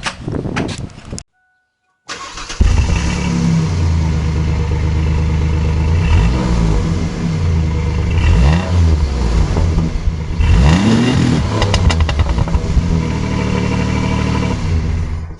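Toyota RAV4 engine starting about two seconds in after a run of clicks, then running, its pitch rising and falling a few times as it is revved. It cranks and runs after the weak battery has been given some charge.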